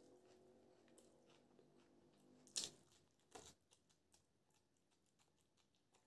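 Close-up eating sounds: two crisp, crunchy bites, one about two and a half seconds in and another under a second later, then soft, wet chewing clicks as a mouthful of biryani and raw green chilli is chewed.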